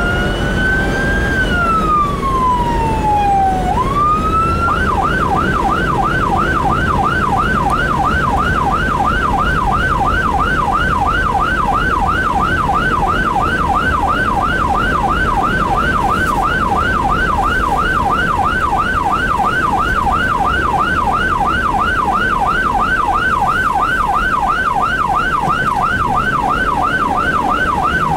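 Electronic emergency siren of a responding fire-department vehicle, heard from inside the cab over engine and road rumble. It starts as a slow wail rising and falling in pitch, then about five seconds in switches to a fast yelp of about two to three sweeps a second.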